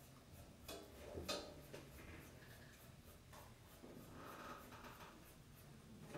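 Faint, scattered light taps and clicks with a soft scratching, the sharpest two coming about a second in.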